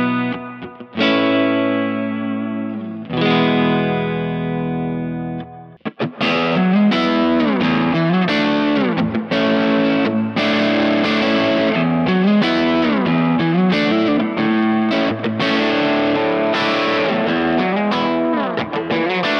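Distorted electric guitar played through a Kemper Profiler using a profile of a 20-watt, two-EL84 Friedman-style high-gain amp. A few strummed chords ring out over the first six seconds. Then, after a short break, comes continuous riffing with fast picked notes and slides.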